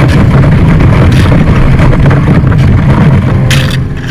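Sea kayak's hull pushing through thin sheet ice: a loud, steady grinding and scraping rumble of ice against the hull, with one short sharp crackle about three and a half seconds in, after which it gets quieter.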